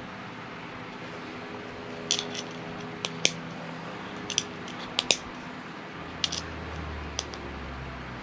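Small plastic Lego pieces clicking and clattering as they are handled and pressed together: about a dozen sharp clicks, some in quick pairs, over a steady low hum.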